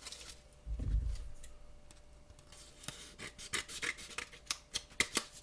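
Scissors cutting open a thin, flimsy foil trading-card pack: a run of short, crisp snips and crinkles, after a soft thump about a second in.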